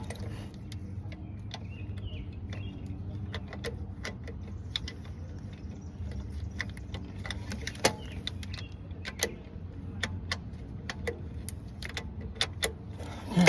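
Hand tools and metal parts clicking and clinking irregularly during work on a minivan's starter, over a steady low hum.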